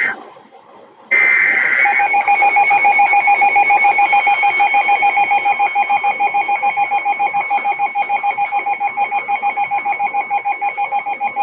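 Emergency Alert System (SAME) data bursts on a NOAA Weather Radio broadcast: a short raspy digital screech ends just after the start, and after a brief gap a second burst runs straight into a loud, rapidly pulsing two-pitch alert tone. The tone signals that a new warning is about to be read.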